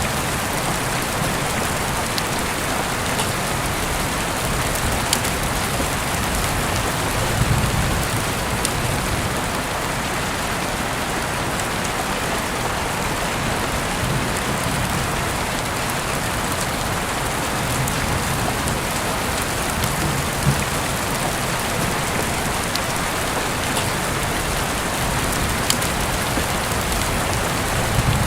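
Steady rain falling on a surface, an even hiss with a few faint sharp ticks scattered through it.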